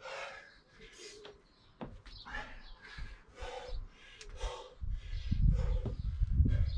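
A person breathing hard and rhythmically while working through kettlebell overhead reverse lunges, with short forceful breaths about every second. From about five seconds in, a low rumble joins the breathing.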